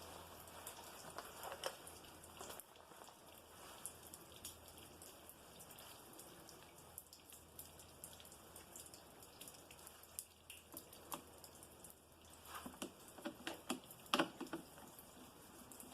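Faint, scattered small clicks and ticks from a screwdriver and screws being handled on the snowblower's plastic housing, with a quicker run of clicks about three quarters of the way through.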